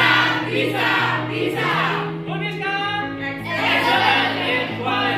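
Music: a song with singing over a bass line of held notes that step up and down.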